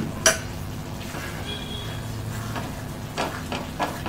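A spatula stirring thick carrot halwa in a metal kadai, with a few short scraping strokes against the pan near the end. A single sharp knock comes just after the start.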